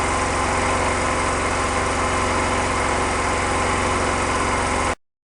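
RIX SA6 three-stage oil-free scuba compressor running at a steady pitch under its 5 hp single-phase electric motor, cutting off suddenly near the end.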